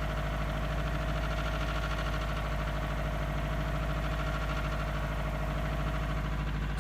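Built 2.6 L Subaru EJ25/STi hybrid flat-four with forged internals idling after a cold start, with a steady, rapid knock of piston slap over the engine hum.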